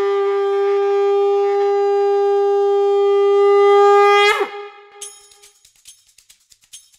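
Conch shell blown in one long, loud, steady note that breaks off with a brief drop in pitch a little over four seconds in. Faint light clicks of percussion follow near the end.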